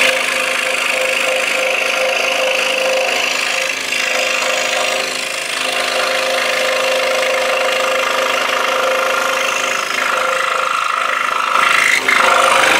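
Scroll saw running and cutting through half-inch-thick wood: a steady whirring hum with the rasp of the reciprocating blade in the board, a little louder near the end.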